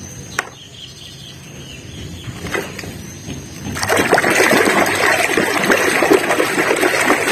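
Water running and splashing as a toy is washed, getting much louder about four seconds in. A sharp click comes shortly after the start.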